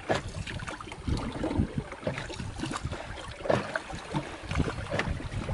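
Choppy river water splashing and slapping against a small wooden boat's hull in irregular bursts, with wind buffeting the microphone.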